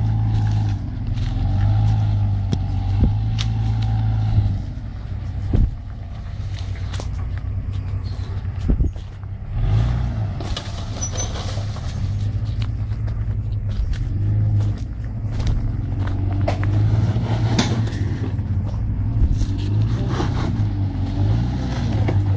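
Off-road 4x4 engine running steadily, with scattered knocks and clunks; the level drops a little about four and a half seconds in.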